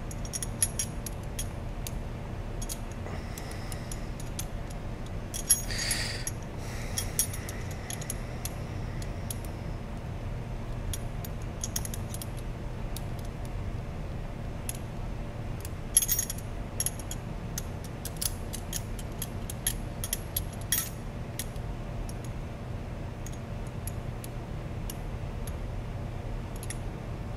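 Small metal pieces of a disentanglement puzzle clicking and clinking against each other as they are turned and worked in the hands, in scattered clusters of light clicks.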